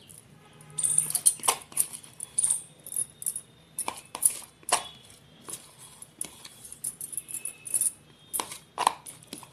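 A spoon scraping and knocking against a plastic bowl and the rim of a steel mixer jar as thick milk cream is scooped in: an irregular run of sharp clicks and scrapes.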